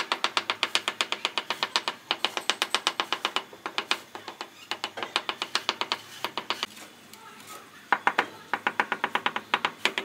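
Rapid, even tapping of the butt end of a wooden hammer handle on ceramic floor tiles, bedding them down into a sand-and-cement mortar bed. It comes in runs with short breaks about four and seven seconds in.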